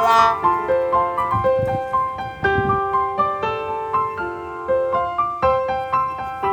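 Background music: a piano melody of single sustained notes over a simple accompaniment.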